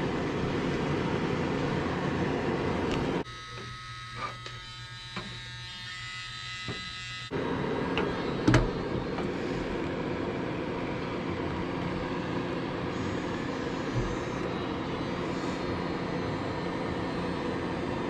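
Steady mechanical running noise with a low hum. It drops away abruptly about three seconds in and comes back about four seconds later. A sharp knock comes about eight and a half seconds in, and a lighter one near the end.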